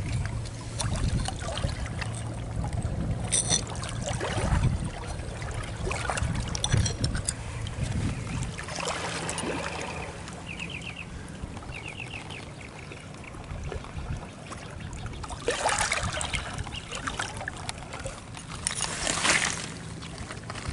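Shallow water trickling and splashing among wet shoreline rocks as hands pick through stones and shards, with scattered clicks of stone and shard. The loudest stretches of splashing and rummaging come about 16 and 19 seconds in, over a steady low hum.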